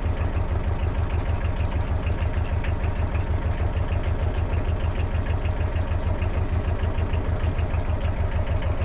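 Narrowboat's inboard diesel engine running steadily at cruising speed, a fast, even low chug. It is loud on board because it has no sound insulation underneath it yet.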